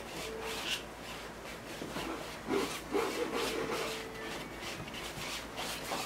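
Paintbrush scrubbing oil paint onto a stretched canvas: a run of short rubbing strokes, loudest about halfway through.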